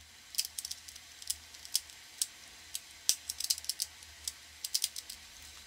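Irregular small plastic clicks from a ShengShou magnetic Rubik's Clock as its pins are pushed and its dials turned by hand, some in quick clusters, with one sharper click about three seconds in.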